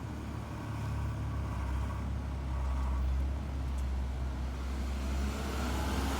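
A car engine running at low revs with a steady low hum, growing a little louder about a second in.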